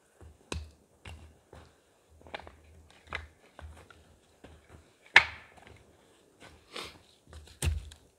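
Irregular knocks and clicks of things being handled, with a sharp knock about five seconds in and another near the end.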